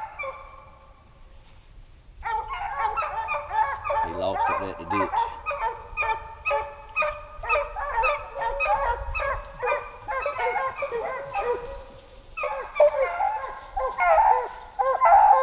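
A pack of hunting hounds baying in full cry while running a fox, many voices overlapping in a dense chorus. It starts about two seconds in, thins briefly near the end, then swells again as the pack comes close.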